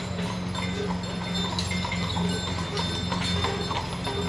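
Hooves of a pair of horses pulling a wagon, clip-clopping on a paved road in a quick, uneven run of strikes, over a steady low hum.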